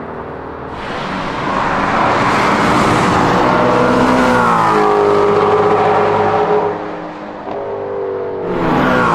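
Ford Mustang Shelby GT350's 5.2-litre flat-plane-crank V8 pulling hard and loud. Its pitch steps down twice, about five seconds in and near the end, and it eases off briefly around seven seconds in.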